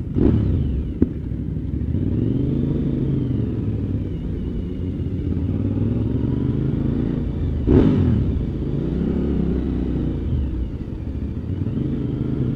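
Motorcycle engine heard from on board the moving bike, its pitch rising and falling as the rider accelerates and eases off. There is a short, louder burst about eight seconds in.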